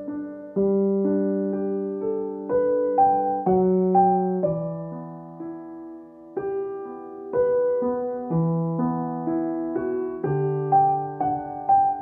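Slow, calm solo piano music: single notes and soft chords, each struck and left to fade, with a brief lull about halfway through.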